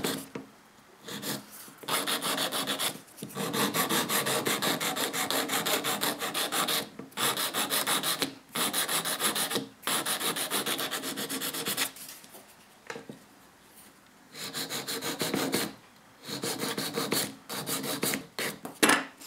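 A hand-held nail file rasps over the hardened resin-and-fibreglass layer of a nail in rapid back-and-forth strokes, in several runs with short pauses between them. This is the filing of the repair's surface to make it smooth and even.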